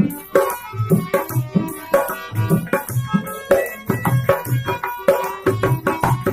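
Dholak drum beating a quick, steady folk rhythm over the held reedy chords of a hand-pumped harmonium, playing a Bhojpuri folk song.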